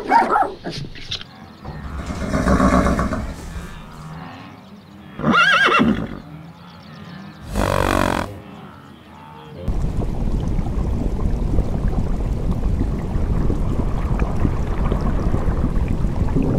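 Horses whinnying: two loud neighs about five and eight seconds in, with a softer call earlier, after a couple of dog barks at the very start. From about ten seconds in a steady rushing noise takes over.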